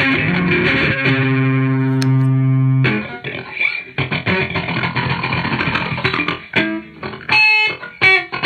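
Distorted electric guitar through a Boss distortion pedal and a Boss DD-3 delay pedal set longer than its short 50 ms range. A held chord rings for about three seconds, then breaks into choppier picked notes and repeats, with an odd, warbling sound.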